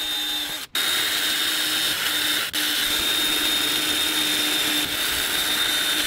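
Cordless drill running with a steady whine as it bores a pilot hole straight down into a sailboat's toe rail with a fine-pointed bit. It stops for an instant just under a second in and dips briefly about two and a half seconds in, then runs on steadily.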